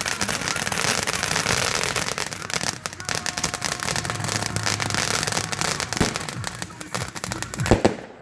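Fireworks display: a dense, continuous crackling of many shells bursting together, thinning out near the end with a few sharper bangs.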